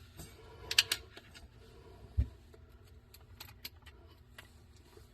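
A few light metallic clicks and small taps from screws and a screw gun being handled, with one dull knock about two seconds in.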